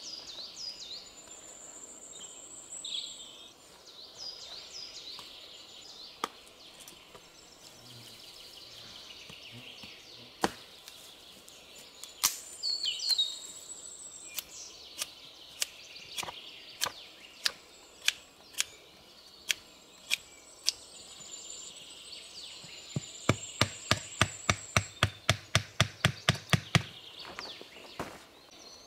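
Knife cutting into a small piece of wood, sharp clicking strokes about once a second, then a fast run of about fifteen knocks, about four a second, near the end. Forest birds chirp and trill in the background, mostly in the first half.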